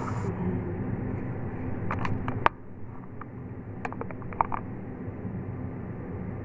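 A steady low hum in a kitchen with a few sharp clicks and taps at the gas stove, where a pot of water is being readied for boiling. The sharpest click comes about two and a half seconds in, and the hum is lower after it.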